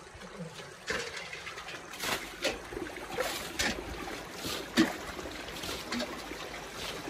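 Small irregular splashes and trickling water as hands grope and scoop for fish in a shallow, nearly bailed-out stream pool among stones, one splash louder about five seconds in.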